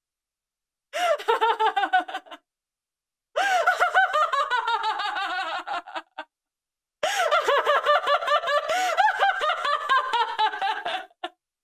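A woman laughing loudly in three long bursts, each a fast run of high-pitched ha's, with dead silence between the bursts.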